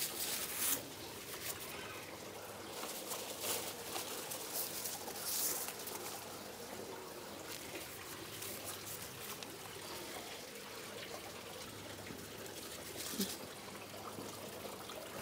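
Water trickling steadily and faintly, with a few brief louder moments.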